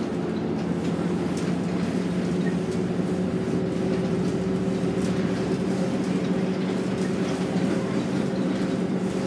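Cabin sound of a MAN 17.223 diesel bus cruising at steady speed: a constant low engine drone with tyre and road noise.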